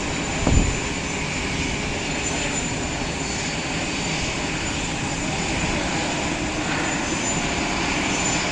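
Steady aircraft turbine noise across an airport apron, with a thin high whine over it and a brief low thump about half a second in.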